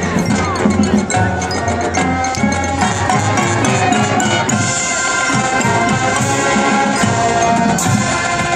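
High school marching band playing: held brass chords over drums and mallet percussion.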